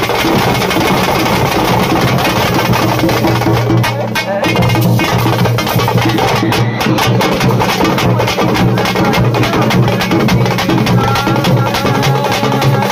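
A troupe of drummers beating double-headed, rope-laced barrel drums with sticks in a fast, dense rhythm of many strokes, dipping briefly about four seconds in.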